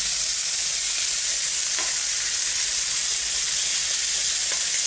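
Raw prawns sizzling steadily in hot oil in a frying pan, with two faint clicks about two seconds in and near the end.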